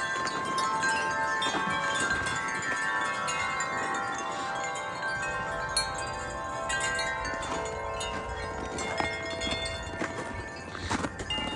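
Wind chimes ringing in gusty wind: many overlapping tones at different pitches, struck again and again and ringing on, over a low rumble of wind.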